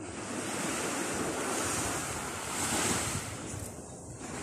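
Sea waves washing onto a sandy beach, with wind buffeting the microphone. The surf noise swells about two and a half seconds in and eases near the end.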